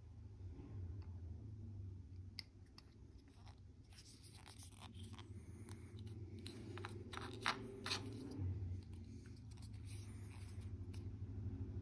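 Scattered small clicks and light scrapes of hard plastic model-kit parts being handled and pressed together by hand, over a steady low hum.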